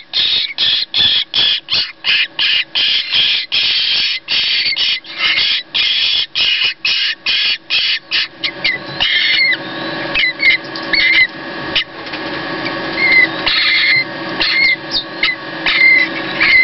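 Jackdaw nestlings begging: a rapid run of short harsh calls, about four a second, while they gape for food. After about eight seconds the calls come more sparsely over a steady background noise.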